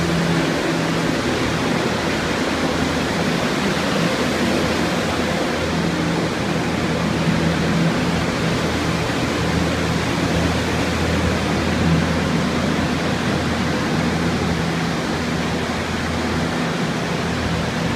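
Many water-restoration air movers, large fans and dehumidifiers running at once to dry out water-damaged walls: a loud, steady rush of air with a low hum underneath.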